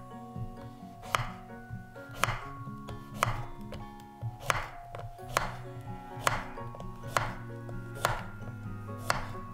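Chef's knife chopping zucchini on a wooden cutting board: a sharp knock of the blade on the board about once a second, about ten in all, over quiet background music.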